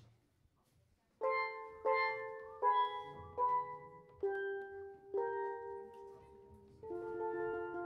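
Steelpan music: after a second of quiet, six single struck notes ring and fade one after another, and near the end several notes sound together.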